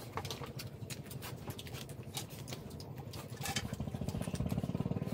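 Small crackling clicks of boiled shrimp shells being peeled and crunchy chewing. A low, rapidly pulsing rumble comes in about three and a half seconds in and grows louder.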